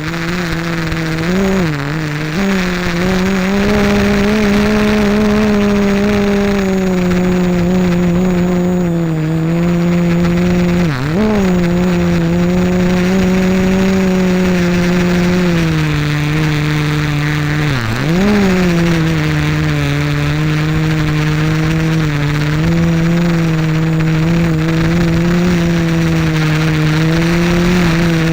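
GAUI 330X quadcopter's electric motors and propellers humming steadily in flight. The pitch wavers with throttle, and drops sharply and swings back up about 11 and 18 seconds in, with two short dips near the start.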